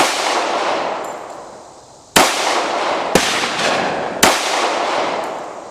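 .45 ACP 1911 Commander pistol with a two-port Schuemann Hycom barrel firing four shots, the second about two seconds after the first and the last two about a second apart. Each shot leaves a long echoing tail.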